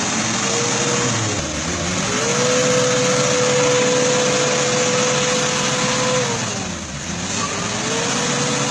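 Mitsubishi Jeep's 4DR6 diesel engine revving under load as it pushes through deep mud. The revs climb about two seconds in and hold high for about four seconds, fall away, then climb again near the end, over a steady noisy wash.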